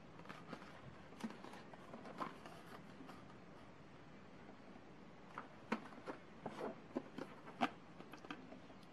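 Faint handling noise as cardboard and clear plastic chocolate boxes are picked up, turned and put down: a scatter of light clicks and taps, more frequent in the second half.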